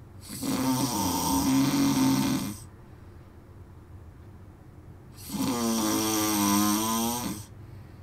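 A sleeping man snoring: two long snores of about two seconds each, roughly five seconds apart.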